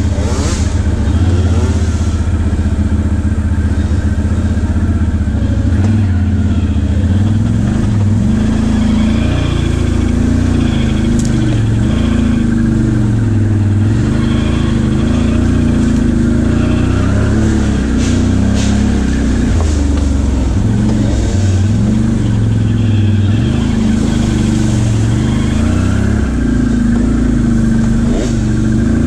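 ATV engine heard close from a camera on the machine, its pitch rising and falling over and over as the throttle is opened and eased off, with a few brief knocks from the ride.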